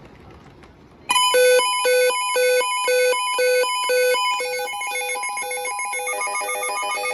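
Electronic synthesizer jingle with bright, buzzy beeping tones, starting suddenly about a second in: notes pulse about twice a second, and the pattern grows busier near the end.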